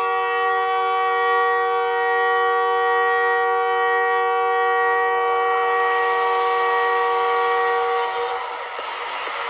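NHL arena goal horn blowing one long, steady blast of several pitches at once, a chord-like air-horn tone that stops shortly before the end. Crowd noise swells under it in its last seconds.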